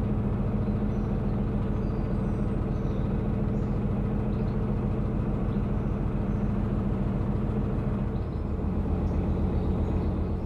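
Narrowboat's diesel engine running steadily at cruising speed, a low, evenly pulsing note. About eight seconds in the revs drop and the note goes lower.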